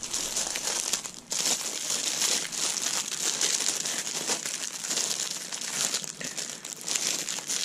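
Plastic packaging bags crinkling as they are handled and turned over, with a brief pause about a second in.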